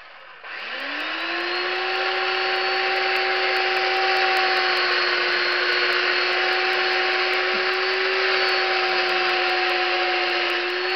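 Chainsaw cutting into a block of wood. The motor winds up about half a second in, then holds a steady high-pitched whine at high speed while the chain cuts.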